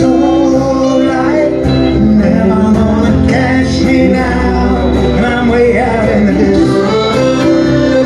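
Live folk band playing a song: a man singing over strummed acoustic guitar, electric guitar and accordion.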